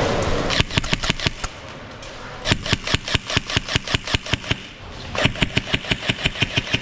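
Scorpion Evo airsoft submachine gun firing three full-auto bursts of BBs at about ten shots a second, the first short and the next two about two seconds long.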